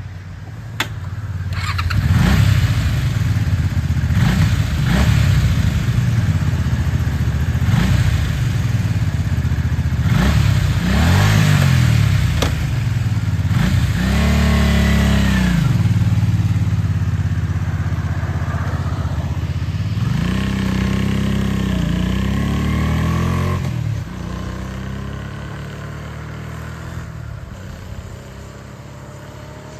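Honda Magna 250's V-twin engine accelerating, its revs climbing and dropping repeatedly as it runs through the gears. Near the end the revs fall away and the sound fades.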